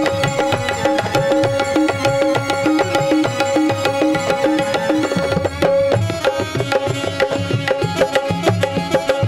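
Instrumental kirtan accompaniment with no singing: hand drums play a fast, even rhythm under a steadily held melody note.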